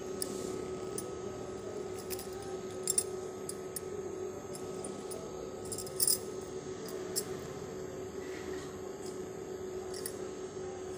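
Glass bangles on a wrist clinking now and then as the hand strokes a cat, a few sharp clinks, the loudest about three and six seconds in, over a steady low hum.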